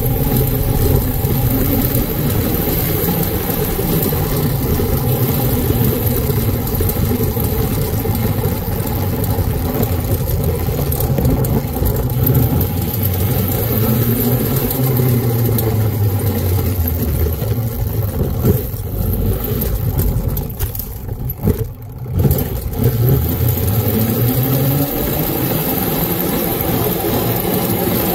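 Custom 52-volt, 1800-watt electric mini scrambler being ridden: its chain-driven drivetrain whines, rising and falling in pitch with speed, over steady chain and tyre noise. It goes quieter briefly about three quarters of the way through as the bike slows, then picks up again.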